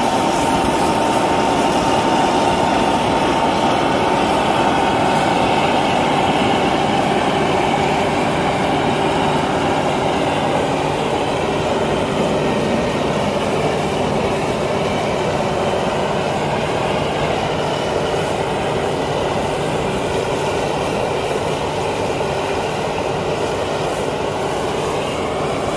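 New Holland 8080 MS combine harvester running as it cuts and threshes ripe rice, its engine and threshing machinery making a steady, dense mechanical noise. It grows slightly fainter toward the end.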